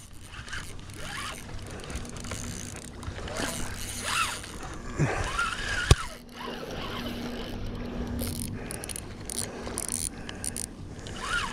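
Large spinning fishing reel being cranked, its gears whirring and clicking as line is wound in, with a single sharp click about six seconds in.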